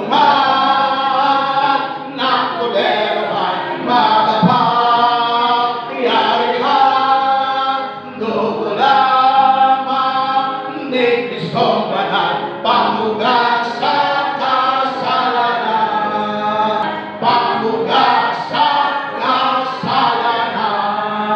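A congregation singing a worship song together, one held note after another.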